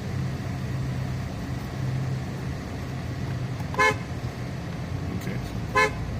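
Car horn of a 2013 Chevy Impala giving two short toots about two seconds apart, sounded from the horn pad of a newly fitted steering wheel: the horn works after the wheel swap. A steady low hum runs underneath.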